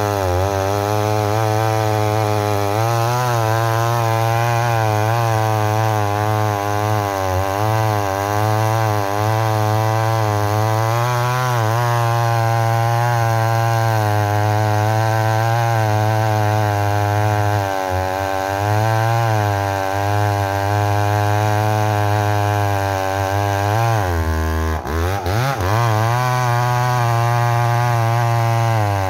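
McCulloch Mac 850 two-stroke chainsaw running at full throttle while cutting into a bluegum log, its engine pitch wavering up and down as the chain loads in the wood. About four-fifths of the way through the engine note drops briefly and then revs back up.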